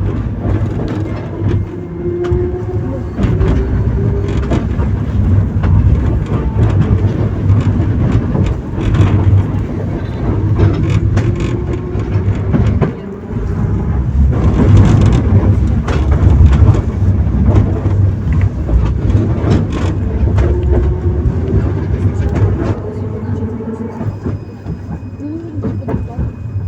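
Type 71-623 tram running along the rails: a steady low rumble with clicks of the wheels over the track, and the traction motors' whine gliding up and down in pitch a few times as it speeds up and slows.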